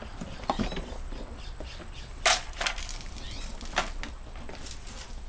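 Plastic clicks and knocks of a Givi V46 topcase being unlatched and lifted off its mounting plate, a few separate knocks with the loudest a little past the middle.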